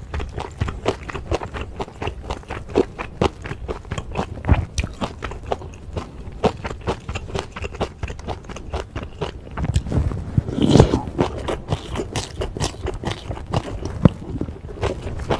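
Close-miked chewing of bulgogi, bean sprouts, glass noodles and kimchi: a dense run of sharp, crisp clicks of teeth and wet mouth noises. About ten seconds in comes a louder, longer burst of eating noise.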